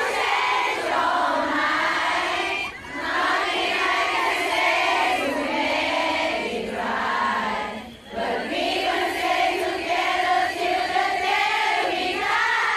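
A large crowd of fans singing together in unison, like a choir. There are two short breaks between phrases, about three seconds in and again about eight seconds in.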